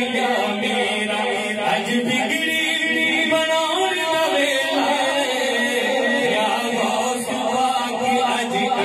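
A man singing a manqabat, a devotional praise song, solo into a handheld microphone, his voice amplified; it runs continuously in long, bending phrases.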